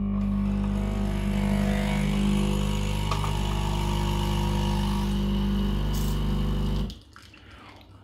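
Nespresso capsule machine's pump buzzing steadily as it brews coffee into a cup, cutting off suddenly about seven seconds in when the brew ends.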